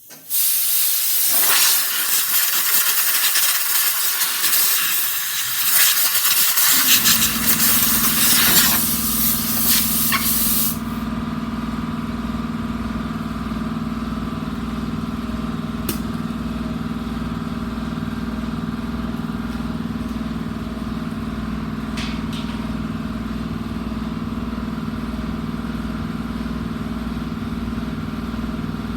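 Compressed air blasting from an air-hose nozzle for about ten seconds, blowing dirt off a fuel line. About seven seconds in, an air compressor starts up and keeps running steadily after the blowing stops.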